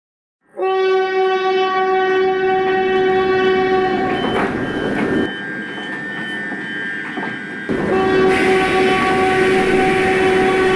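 Train horn blowing a long steady blast over the rumble of a moving train, breaking off about four seconds in. After several seconds of train running noise alone, the horn sounds again for another long blast.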